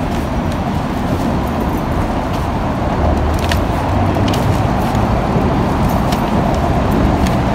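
Steady outdoor city background noise with a heavy low rumble, like road traffic.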